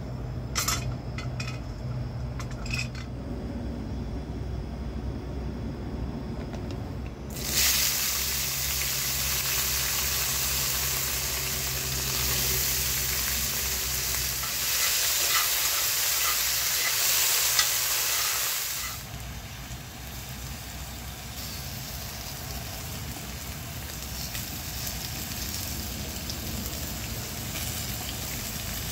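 Meat and potatoes frying in a pan. For the first few seconds there is only a low hum and a few clinks, then about seven seconds in a loud sizzle starts suddenly, as when food goes into hot oil. It eases to a quieter, steady sizzle a little past the middle.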